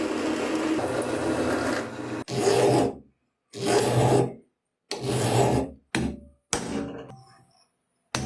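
Abrasive scraping on metal parts of an antique hand drill being restored: a steady rasping for about two seconds, then a series of separate strokes, each under a second, cut off abruptly.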